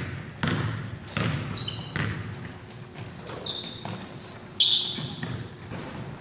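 A basketball bouncing on a hardwood gym floor, a string of sharp thuds, with sneakers squeaking in short high chirps on the court through the middle.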